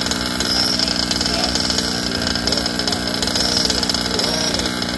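Small two-stroke petrol engines of 1/5-scale RC cars: a steady engine note runs underneath while another engine revs up and down as its car drives.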